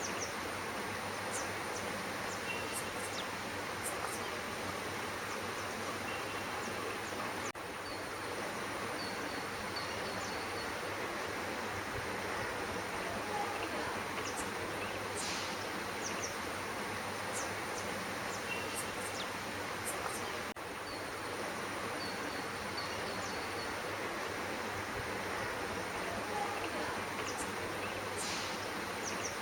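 Steady outdoor background hiss with a thin, high, steady whine, and scattered short high chirps and a few brief trills from small birds.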